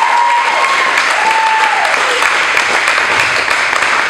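Crowd applauding with dense, steady clapping. In the first two seconds a couple of long, high voices call out over it.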